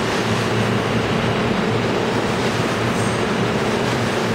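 New York City subway train running past along the platform at speed: a steady noise of wheels on the rails with a steady low hum from the motors.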